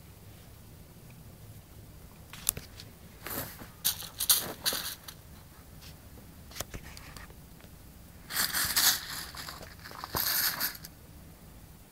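Ice cubes rattling and crunching as a keeshond paws and bites at a pile of them, in three spells of a second or so, with a sharp click or two between.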